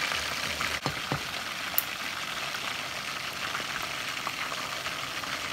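Chicken wings deep-frying in hot canola oil: a steady bubbling sizzle, with a few sharp crackles in the first two seconds.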